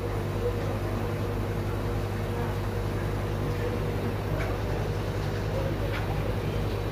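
Steady low electrical hum with an even hiss from running aquarium equipment such as air pumps and filters.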